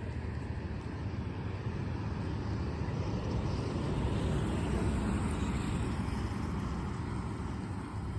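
Car and road noise: a steady low rumble of tyres and engine that swells a little around the middle and eases off near the end.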